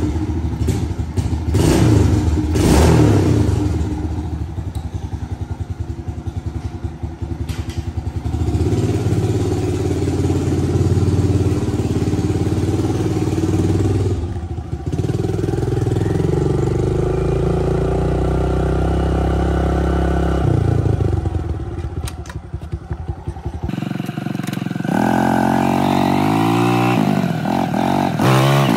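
Suzuki DR-Z110 pit bike's small carbureted four-stroke single, just kick-started: revved in short blips, settling to a regular putter, then revved up and down as the bike rides off. Near the end the engine pitch climbs and drops again and again as it accelerates.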